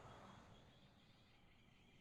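Near silence: faint outdoor background, slightly quieter after about half a second.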